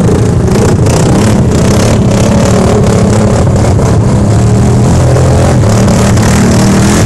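Side-by-side UTV engine running steadily under load as the vehicle pushes through deep mud and standing water.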